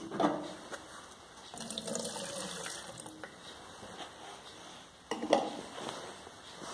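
Kerosene solvent sloshing and trickling in a metal paint can, with a clunk just after the start and another about five seconds in.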